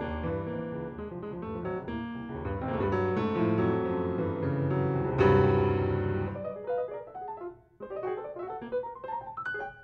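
Grand piano playing dense, sustained chords over low bass that build to a loud accent about five seconds in. After that the sound thins out to sparse, quieter notes higher up the keyboard.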